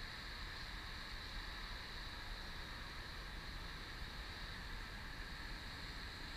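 Steady background noise: a constant hiss with a low rumble, with no distinct knocks or other events.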